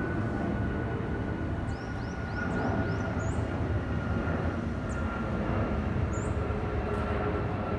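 Airbus A340-500 four-engine jet flying over, its Rolls-Royce Trent 500 engines making a steady low rumble with a thin whine that slowly falls in pitch. Short high chirps come through it: a quick run of about five near two seconds in and single chirps every few seconds.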